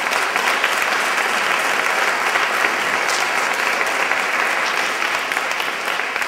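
Audience applauding, a dense, steady clapping that stays loud throughout.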